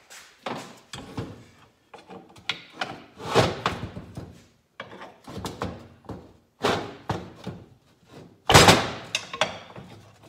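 A series of irregular metal clunks, knocks and scrapes as the two halves of a Kawasaki KE100 engine's crankcase are pried apart with a screwdriver and a pry bar. The halves are stuck on rusted dowel pins. The heaviest clunk comes about eight and a half seconds in, as the case half comes free.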